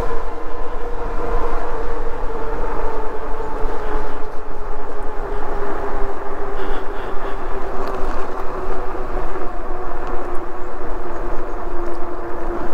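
Himiway Zebra fat-tyre e-bike in motion: a steady hum from its rear hub motor and fat tyres, slowly falling in pitch, over a constant rush of wind noise.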